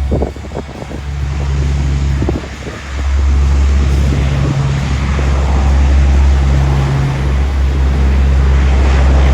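Jet airliner engine noise, the hiss building from about three seconds in, with strong gusty wind rumbling on the microphone.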